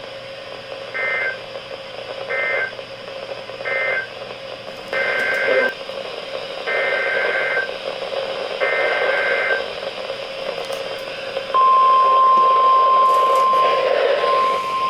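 NOAA Weather Radio Emergency Alert System data bursts: three short two-tone warbling bursts that end the previous message, then three longer bursts that carry the data header of the next alert. About eleven and a half seconds in, the steady 1050 Hz weather radio warning alarm tone starts and holds, over a constant radio hiss.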